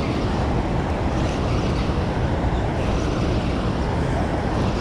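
Steady rush and low rumble of water pouring through a dam's open spillway gates and churning in the tailwater.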